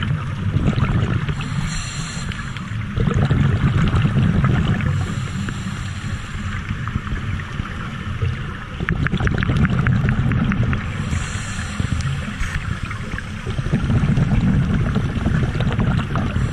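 Underwater breathing through a scuba regulator, heard in about three slow cycles. Each inhale is a short high hiss, and each exhale is a longer low bubbling rumble.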